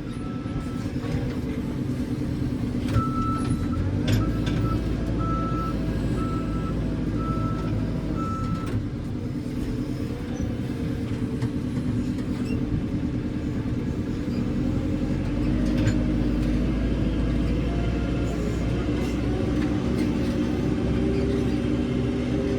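JCB 3CX backhoe loader's diesel engine running steadily under load, its low rumble rising twice as the machine works. A reverse alarm beeps about once a second for several seconds in the first part, then stops.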